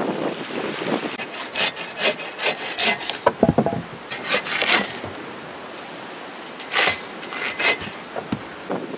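Hand bow saw cutting through a birch log in rasping back-and-forth strokes, in bursts of about two or three strokes a second with short pauses between. About a third of the way in there is a knock.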